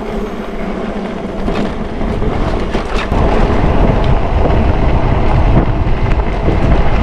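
Fat 20x4 tyres of a folding e-bike rolling over a dirt and loose-gravel trail, with the bike rattling over bumps and wind rushing on the microphone; it gets louder about three seconds in as the bike picks up speed. The bike is coasting downhill, without motor assist.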